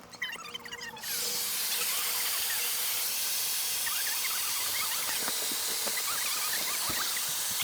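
A loud, steady hiss starts suddenly about a second in and holds even, with short chirps sounding over it.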